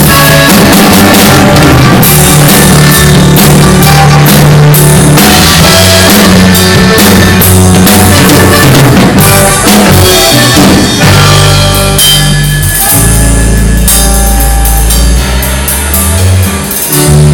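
Live band playing an instrumental passage, loud: drum kit with regular strikes, accordion and guitar over steady low bass notes, a little softer in the last few seconds.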